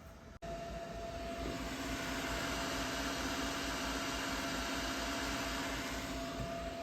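A steady motor-like hum with a faint tone in it, starting suddenly about half a second in and ending with one loud sharp click.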